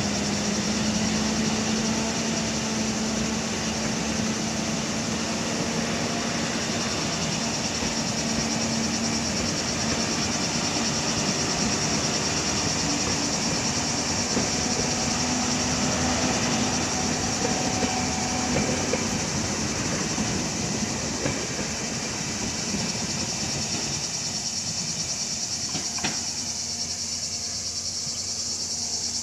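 Passenger coaches of a loco-hauled train rolling past close by, the rumble of wheels on rail thinning out over the last few seconds as the end of the train draws away. A steady high insect shrill runs under it.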